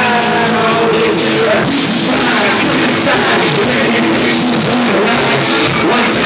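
Live rock band playing loudly, with a voice singing over the band.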